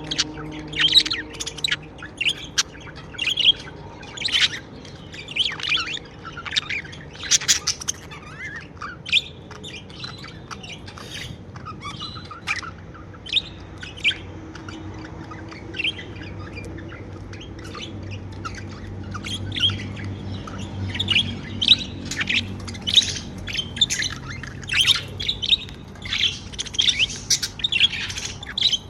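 Budgerigars chirping, a stream of short, irregular chirps and warbles that grows busier toward the end.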